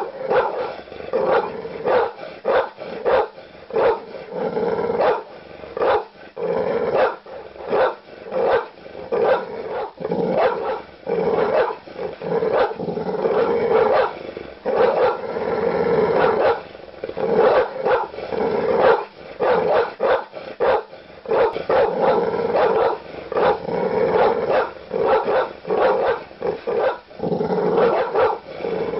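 Big dogs barking aggressively and without let-up: deep barks following one another in quick, irregular succession, often overlapping.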